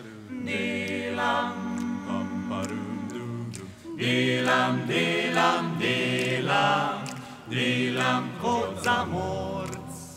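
A small a cappella vocal group of mostly male young voices singing in close harmony, holding long chords over a steady low bass line. A short break comes just before the middle, then louder phrases follow, and the singing fades near the end.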